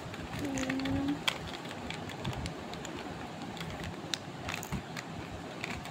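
Plastic Rubik's cube being twisted in the hands: irregular clicks and clacks as its layers turn. A brief steady hum sounds about half a second in.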